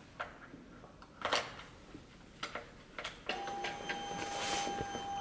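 A few small clicks and knocks, then about three seconds in a steady high-pitched electric whine starts from the BMW G310GS motorcycle as its ignition is switched on and the headlight comes on.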